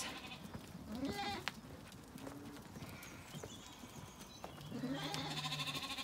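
Zwartbles sheep bleating as the flock moves along: a short bleat about a second in and a longer, low held baa near the end, with faint birdsong in between.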